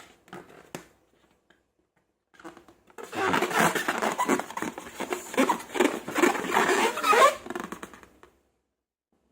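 Slime being squeezed and worked with balloons: a few faint crackles, then from about three seconds in a dense stretch of sticky squelching and crackling with wobbling tones for about five seconds.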